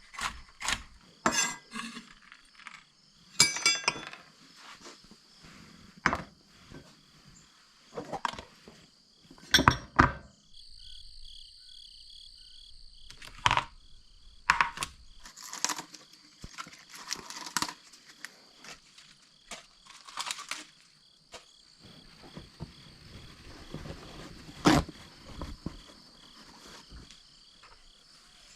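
Dishes and utensils clinking and knocking in scattered sharp strikes during kitchen food prep, with a faint steady high-pitched whine underneath.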